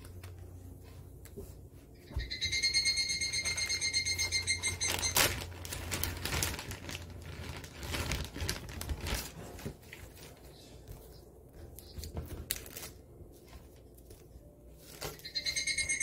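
Cicada song: a fast-pulsing, ringing buzz starts about two seconds in and turns into a rougher, crackling rattle. It fades and then starts again near the end.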